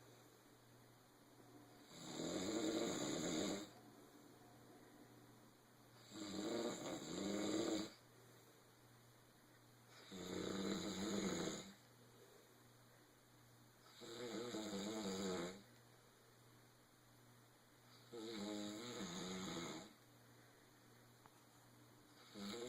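Snoring in a steady rhythm: a snore about every four seconds, each lasting about a second and a half, with quiet breathing gaps between.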